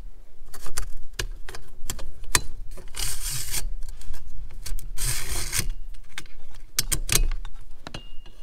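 Coax TV antenna cable being pulled out through its hole in a caravan's roof-mounted antenna mast: many small clicks and ticks, with two short scraping rubs as the cable slides through, about three and five seconds in.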